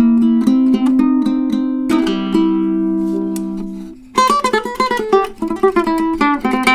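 Tenor ukulele with figured koa back and sides and a redwood top, played unamplified: strummed chords ring out and die away, then from about four seconds in a quick run of picked notes.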